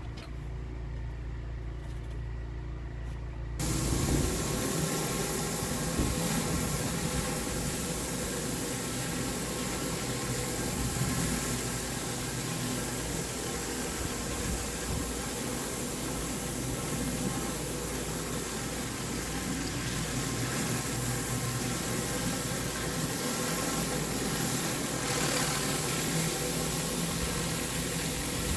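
Pressure washer engine running steadily. About three and a half seconds in, the flat surface cleaner's water spray starts with a sudden hiss and keeps going steadily as it cleans the concrete over the engine's hum.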